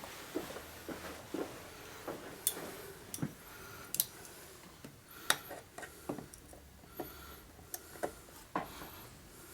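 Pliers clicking and tapping against a stuck plastic electrical connector on a motorcycle fuel pump controller as it is squeezed and worked, a scatter of small, irregular clicks.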